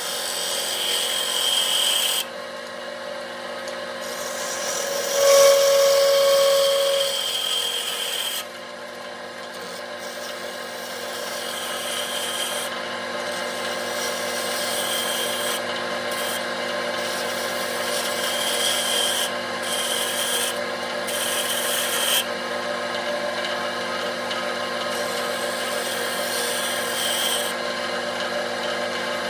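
Wood lathe running with a steady motor hum while a turning tool cuts the spinning wooden bowl blank. The scraping of the cut comes and goes every few seconds as the tool meets the wood.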